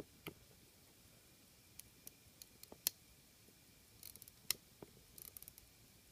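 Faint, irregular sharp clicks from fingers turning the crown of a gold-filled Hamilton 921 pocket watch, with two quick runs of fine rapid clicking about four and five seconds in.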